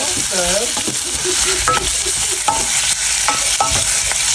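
Shrimp frying in hot oil in a small saucepan, a loud steady sizzle, being pan-fried until half-cooked. A spatula turns them, clicking against the pan a few times.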